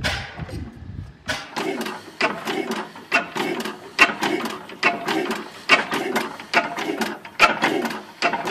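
Hornsby-Akroyd single-cylinder hot-bulb oil engine running, its mechanism clacking in a regular beat about twice a second. A low rumble fills the first second before the clacking starts.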